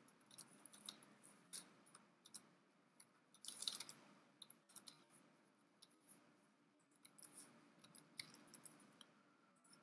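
Faint, scattered clicks of computer keyboard keys and a mouse, with a short run of keystrokes about three and a half seconds in.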